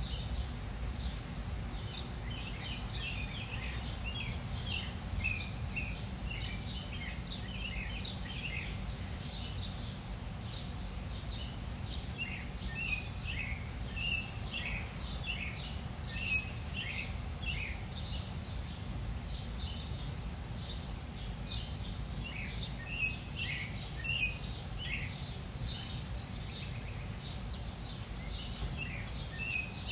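Backyard ambience: small birds chirping in quick, repeated short notes, in clusters throughout, over a steady low rumble.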